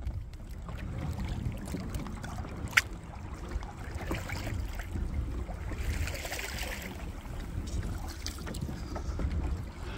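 Water sloshing against the hull of a moving kayak, with a steady low wind rumble on the microphone. A single sharp click about three seconds in, and a brief splashing hiss around six seconds in.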